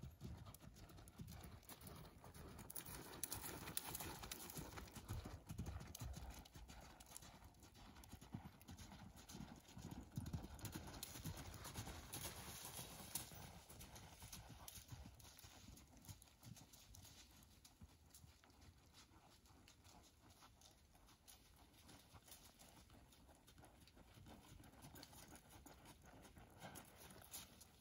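Hoofbeats of a ridden horse on the sand footing of an arena, loping, louder in the first half and softer later as the horse slows toward a walk near the end.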